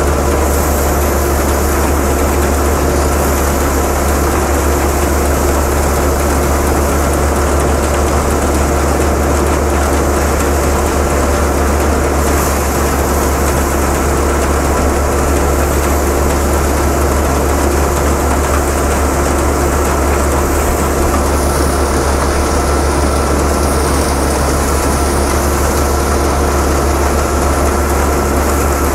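Peanut thresher and the engine driving it running steadily under load as bundles of peanut plants are fed in: a loud, unbroken low drone with several steady tones above it.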